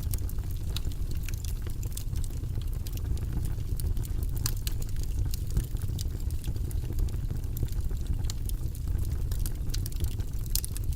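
Wood fire in a fireplace crackling, with frequent irregular sharp pops over a steady low rumble.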